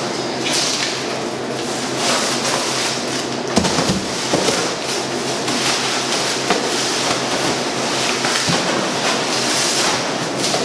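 Packing material in a cardboard box rustling and crackling continuously as it is handled and pulled loose, with a few sharper knocks, the clearest about three and a half seconds in.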